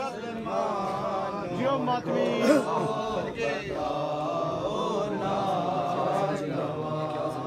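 A group of men chanting a noha, a Shia mourning lament, together in long drawn-out lines, several voices overlapping.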